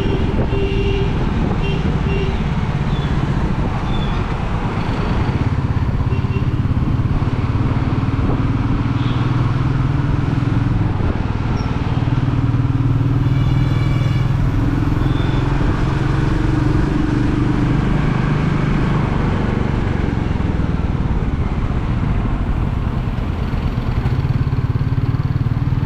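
Royal Enfield Meteor 350's 349 cc single-cylinder engine and exhaust running while the bike cruises, the engine note drifting a little up and down with speed.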